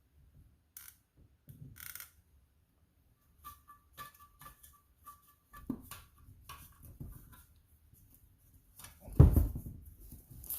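Hand work on pool pump motor parts: scattered clicks and knocks of tools and metal parts being handled, with faint short squeaks midway and one loud thump about nine seconds in.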